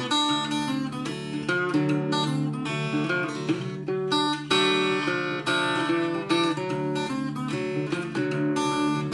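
Small-bodied acoustic parlor guitar played fingerstyle: an instrumental break of ragtime blues, with a run of picked treble notes over a steady bass line.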